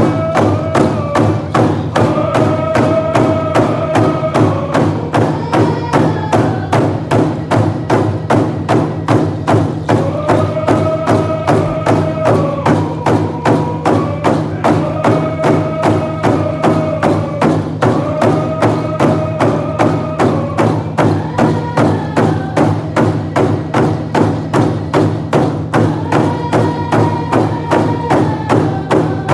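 Group of hand drums beaten together in a steady, even beat, with a group of voices singing a song over them.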